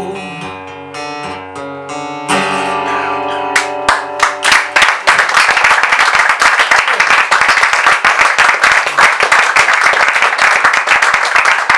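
Acoustic guitar playing the closing chords of the song, letting them ring, then audience applause breaking out about five seconds in and continuing.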